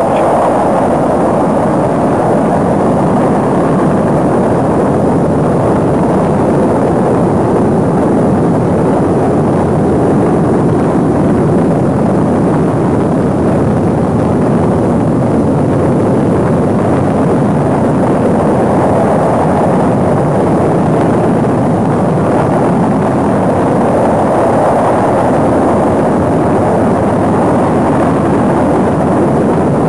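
Rocket engines at launch: a loud, steady roar that holds constant without letting up.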